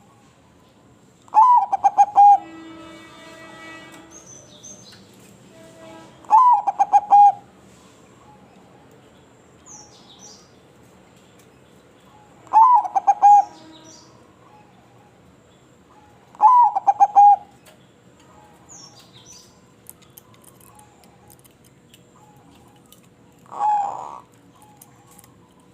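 Zebra dove (perkutut) singing: four short phrases of rapid, stuttering coos, one every four to six seconds, then a softer coo near the end. Faint high chirps of other small birds come in between.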